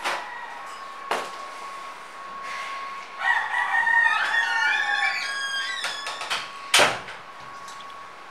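A rooster crowing outside the open door, one long call about three seconds in. A door handle clicks, and near the end the door shuts with a sharp knock, the loudest sound here.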